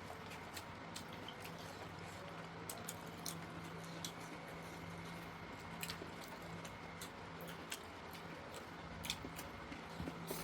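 Close-up eating sounds: chewing with many small, sharp wet mouth clicks scattered throughout, over a steady low hum.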